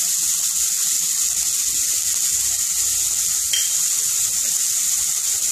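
Chopped onion, carrot, cauliflower and tomato sizzling steadily in hot oil in a nonstick frying pan.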